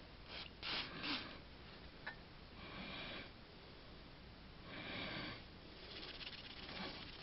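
Faint, soft rubbing strokes, a second or two apart, as a cloth rag is worked over a bare steel Zastava M70 pistol frame.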